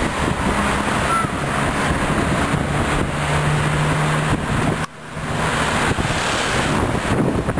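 Steady rush of wind on the microphone mixed with cars driving past on the road, a low engine hum standing out for a second or so midway. The noise drops out briefly just before the five-second mark.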